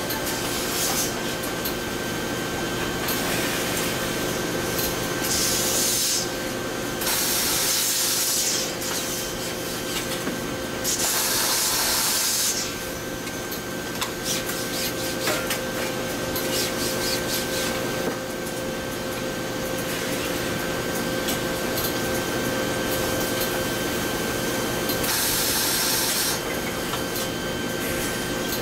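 Automatic shirt ironing machines running with a steady hum and tones, with loud hissing blasts several times, each lasting a second or two, and light clicks in between.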